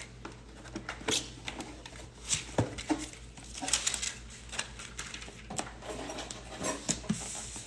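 Irregular clicks, taps and rustles of objects being handled, with a few brief low sounds among them.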